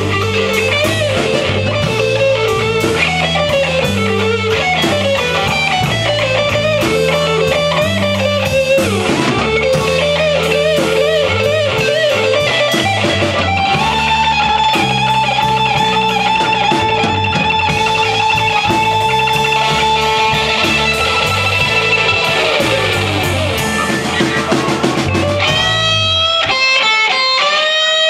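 Live blues band playing an instrumental section: electric guitar and amplified blues harmonica over bass guitar and drums. Near the end the bass and drums drop out for a few seconds of clipped high guitar notes before the band comes back in.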